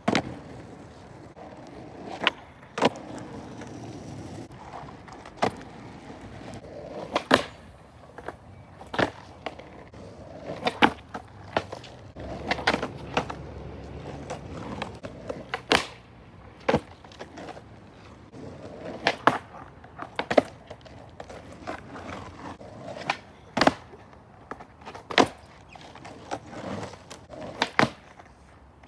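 Skateboard wheels rolling over pavement, broken by many sharp clacks of the board popping and landing at uneven intervals.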